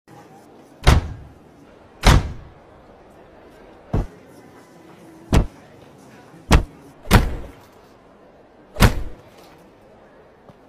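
Car door slammed shut again and again: seven heavy slams at uneven spacing over about eight seconds, a few of them trailing off briefly.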